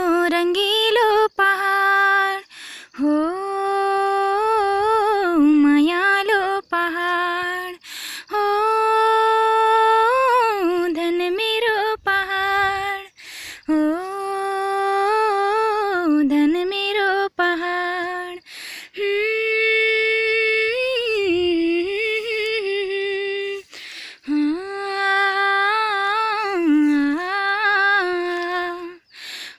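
A woman humming a folk-song melody with no words and no accompaniment, in phrases of a few seconds with short breaks between them.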